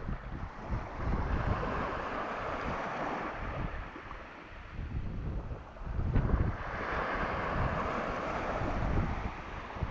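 Sea waves washing, with a louder wash building up about two-thirds of the way in. Wind buffets the microphone in gusts.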